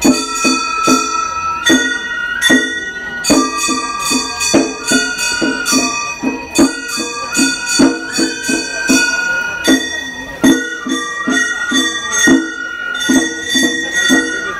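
Gion-bayashi festival music played live on a float: a bamboo flute holding and stepping between notes over quick, ringing strikes of small brass hand gongs (kane).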